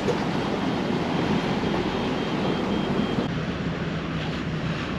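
Steady drone of a boat engine running under way, mixed with wind and water hiss. The sound thins slightly about three seconds in.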